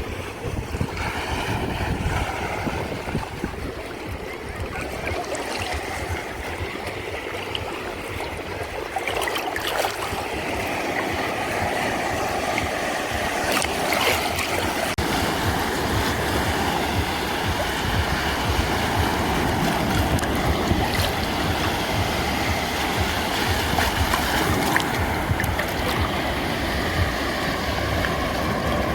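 Sea waves washing on the shore in a steady wash of surf, with wind buffeting the microphone.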